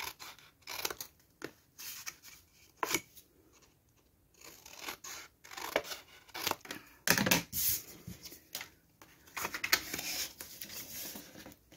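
Paper being cut and handled: irregular short snips, scrapes and rustles, busier in the second half.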